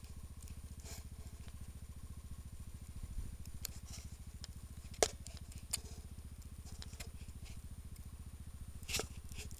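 A small vehicle engine running steadily, a low even pulsing, with a few sharp clicks over it, the loudest about halfway through.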